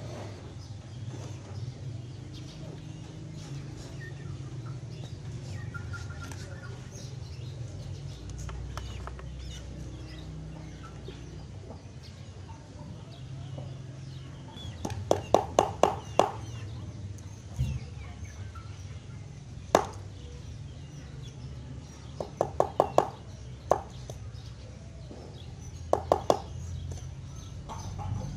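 Chicken clucking in short quick runs of three to six clucks, starting a little past the middle, over a steady low background hum. A single sharp click comes between the runs.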